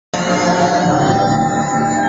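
Loud music over a venue sound system, with dense sustained tones, cutting in abruptly just after the start.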